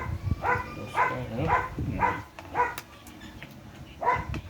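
A dog barking in a quick series of about five barks, then one more bark after a short pause near the end.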